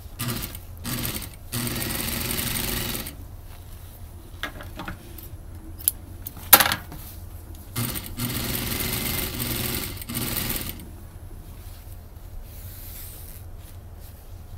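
Hikari industrial single-needle lockstitch sewing machine stitching satin lining in short runs: a few brief bursts in the first three seconds, then a longer run from about eight to eleven seconds. A sharp knock about six and a half seconds in is the loudest sound.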